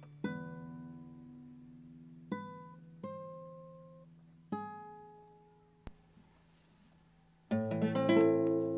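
Classical guitar playing a slow melody of single plucked notes, each left to ring out. About seven and a half seconds in, a fuller rolled chord sounds, the loudest moment.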